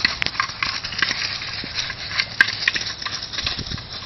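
Dry fallen leaves crackling and rustling underfoot in quick, irregular clicks.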